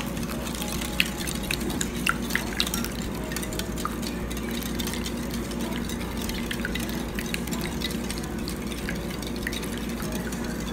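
Metal wire whisk beating eggs, melted butter and water in a glass bowl: a steady wet sloshing with many quick, irregular clicks of the tines against the glass.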